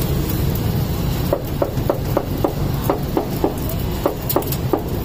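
A rapid run of sharp knocks, about three or four a second, starting about a second in: a cleaver chopping beef on a wooden block. A steady low rumble of street traffic runs underneath.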